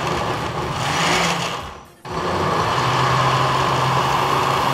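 Countertop blender pulsed on a mixture of guava paste, cream and orange soda. The motor runs, cuts out for a moment about two seconds in, then starts again and runs steadily.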